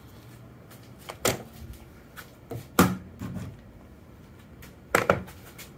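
Steel tube being handled on a workbench: a few sharp knocks and clunks, one about a second in, the loudest near three seconds and another about five seconds in, with lighter taps between.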